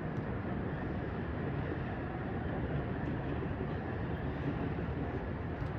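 Steady low outdoor rumble with no distinct event, from distant traffic and rail activity around a rail yard.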